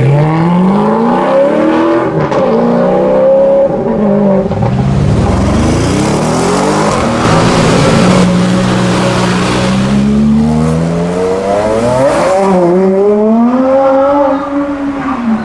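High-performance car engines accelerating hard, with the revs climbing again and again. First an Alfa Romeo 4C Spider's turbocharged four-cylinder pulls away. Then an Aston Martin One-77's 7.3-litre V12 revs and pulls away, its pitch rising strongly near the end.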